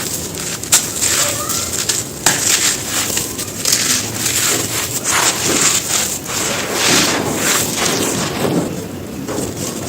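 Soft, dry stone being crushed and crumbled: a continuous run of dry crunches and crackles with sharp snaps mixed in.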